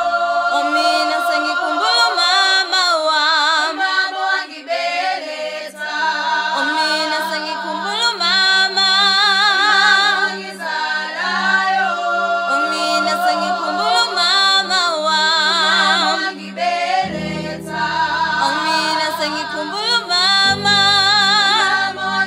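Music: a group of voices singing in held, wavering notes, a cappella in the style of a choir. A low held note joins after about five seconds, and deeper bass notes come in near the end.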